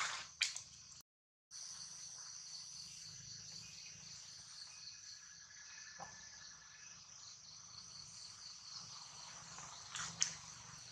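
Steady, high-pitched insect chorus in the trees. The sound drops out completely for about half a second near the start, and a few short sharp sounds stand out at the start and again near the end.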